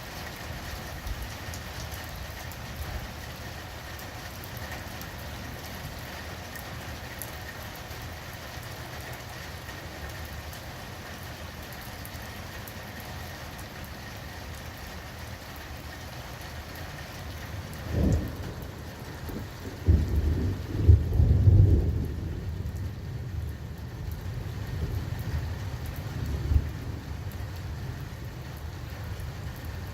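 Steady rain falling, then about two-thirds of the way in a sharp clap of thunder followed by low rolling rumbles that fade over several seconds.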